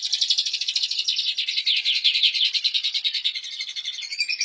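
A songbird singing a long, rapid, continuous trill of high chirping notes.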